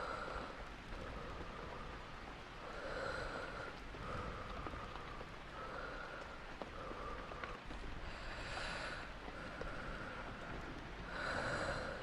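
Slow, close breathing, in and out about every second or so, over a steady patter of rain. Two breaths, around eight seconds in and near the end, are stronger than the rest.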